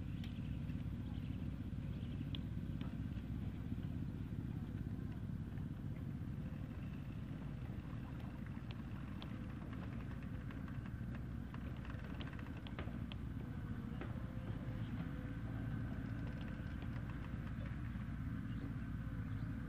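Steady low outdoor rumble with scattered faint clicks.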